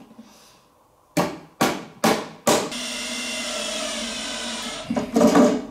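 Four quick hammer knocks on a flat-pack drawer panel, about half a second apart. Then a cordless drill-driver runs steadily for about two seconds, driving a screw into the drawer, and a short louder burst follows near the end.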